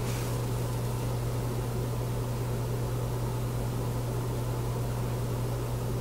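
Ceiling fan running at about a quarter power on a variable speed controller, its three blades all on one side so the unbalanced rotor wobbles: a steady low hum under an even rushing of air.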